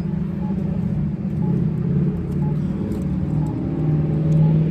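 A nearby motor vehicle engine runs with a deep, steady rumble that grows slowly louder. A short faint beep repeats about once a second over it.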